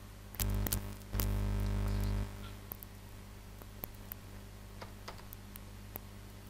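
Typing on a computer keyboard: scattered, irregular key clicks. In the first two seconds a low hum comes up twice, louder than the keys.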